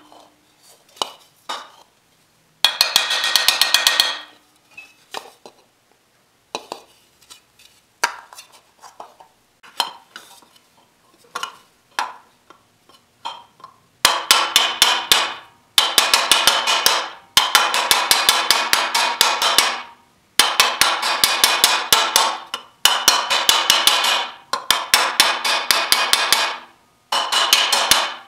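Metal-shaping hammer striking a thin aluminium motorcycle fender held over a steel dolly in a vise, planishing the corners down. There is a burst of rapid ringing metallic blows early, scattered single taps in the middle, and from about halfway on long runs of fast strikes broken by short pauses.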